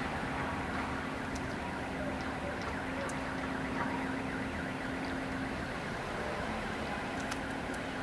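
Neighbourhood background noise: a steady hum over a general wash of sound, weakening about five and a half seconds in, with a few faint ticks.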